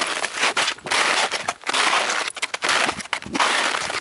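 Footsteps crunching through crusted snow, in a run of close, noisy crunches with short breaks between steps.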